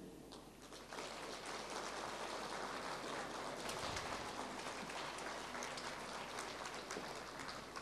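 Audience applauding, faintly. The clapping starts about a second in and dies away near the end.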